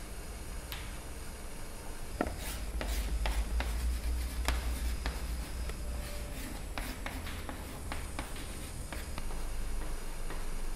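Chalk on a blackboard writing a word: a string of short taps and scratches as the letters are formed.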